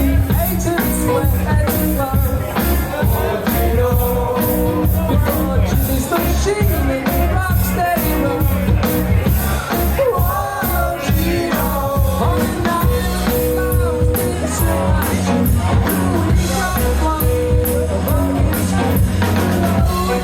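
Live rock covers band playing loudly through a pub PA: a steady drum beat, bass and guitars, heard close to the speakers with a squashed, distorted loudness.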